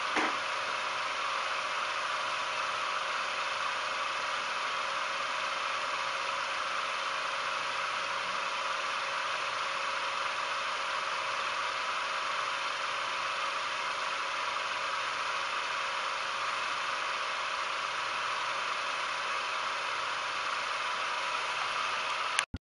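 Motor-driven Nipkow disc spinning at high speed, a steady whir with a faint hum. It cuts off suddenly near the end.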